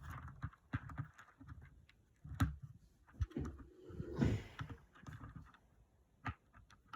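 Small 3D-printed plastic model parts being handled and fitted together: scattered light clicks and taps, with a longer scraping, rustling handling sound about four seconds in.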